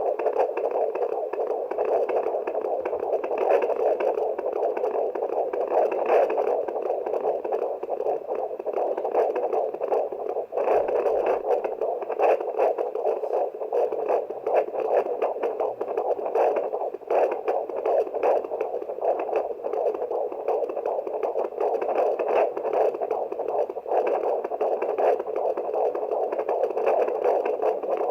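Handheld fetal Doppler monitor's speaker giving a continuous whooshing static with a fast flutter, its ultrasound probe listening for the fetal heartbeat.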